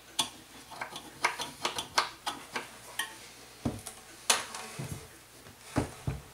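Irregular clinks and knocks of small metal parts and tools being handled on a workbench, a dozen or so sharp clicks with a few duller knocks in the second half.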